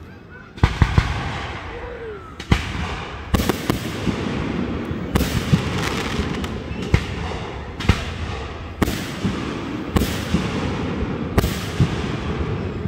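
Aerial firework shells bursting overhead. After a quiet first half-second, about a dozen loud bangs come in quick succession, roughly one a second and a couple nearly together, each followed by a rumbling echo.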